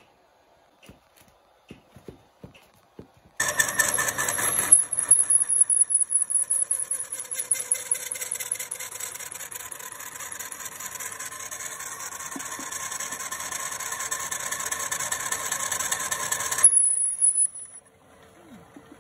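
Old metal lathe cutting a taper on the end of a steel socket, the cutting tool squealing loudly against the turning work. The squeal starts suddenly a few seconds in, pulses at first, then holds steady until it cuts off near the end, leaving a brief fading squeal. Faint clicks of the tool post being set come before it.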